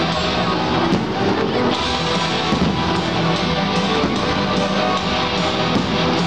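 Guitar-led rock music playing steadily.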